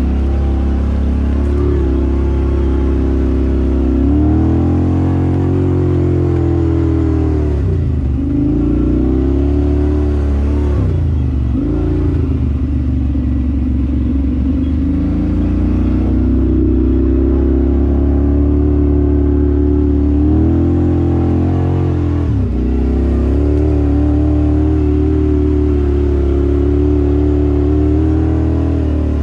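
Off-road vehicle engine running continuously on a trail ride, its pitch dropping and climbing again several times as the throttle is eased off and opened back up.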